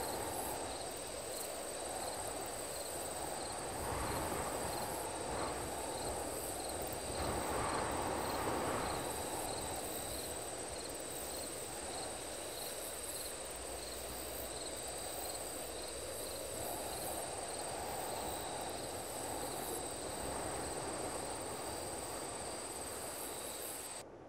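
Night insect ambience: crickets trilling steadily with faint regular chirps, over a low wash that swells and eases a couple of times. It fades out near the end.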